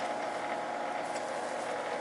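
Machinery running steadily in a boiler room, a continuous hum with a held tone and no breaks.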